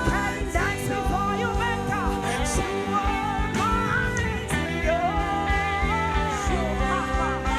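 Live worship band music: sustained chords underneath with a melodic line that glides and bends in pitch over them.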